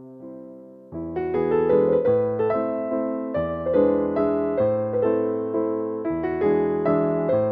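Background music: a piano playing a gentle waltz in A minor, soft for the first second, then fuller chords and melody from about a second in.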